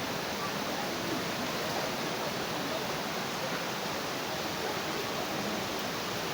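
Steady, even rushing of fast-flowing floodwater.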